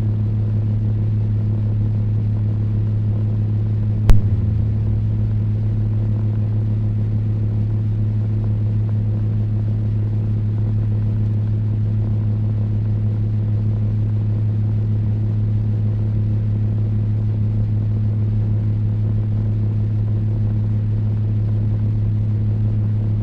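Table fan running steadily: a constant low motor hum over an even rush of air. A single sharp click about four seconds in.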